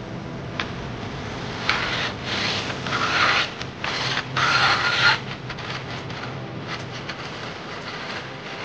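Rough rubbing strokes across wood, about five in a row of roughly half a second each, starting about two seconds in and stopping about five seconds in.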